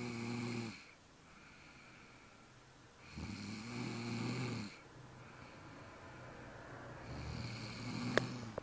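A person snoring in deep sleep: three loud snores about three and a half to four seconds apart, each lasting about a second and a half, with quieter breathing between them. A sharp click comes near the end.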